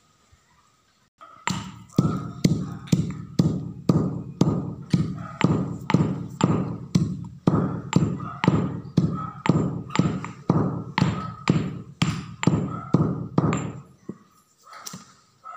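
Stone pestle pounding grain in a stone mortar: steady thuds about two a second, each with a short ringing tone. The pounding starts about a second and a half in and stops near the end.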